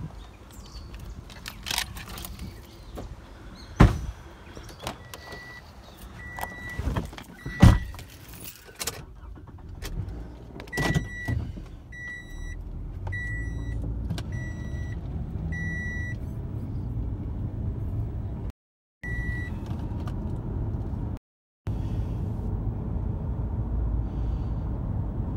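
A few loud thumps from car panels being shut, then a car's high warning chime beeping over and over, about every two-thirds of a second. After that comes the steady low rumble of engine and tyres heard inside the car's cabin as it drives.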